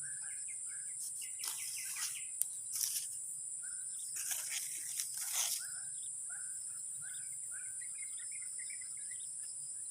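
A bird giving short, repeated chirps over a steady high-pitched insect drone, with a few brief rustling, scraping noises between about one and six seconds in.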